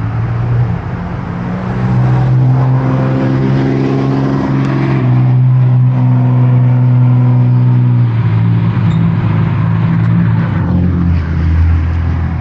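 Car engine running as the car moves through a drive-thru lane. Its note is steady, rises about two seconds in, then drops in steps over the last few seconds.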